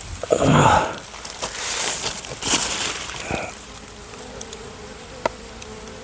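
Rustling and handling noise as the wooden box hive is handled, then honeybees buzzing in a steady hum around the hive from about four seconds in.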